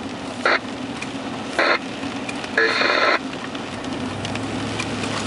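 Scanner radio carrying dispatch traffic, between transmissions: steady static hiss broken by three short bursts of noise, the last about half a second long, then a low hum near the end.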